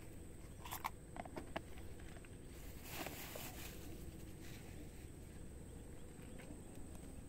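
Faint outdoor background with a steady high-pitched whine, a few small sharp clicks about a second in, and a short rustling noise around three seconds in.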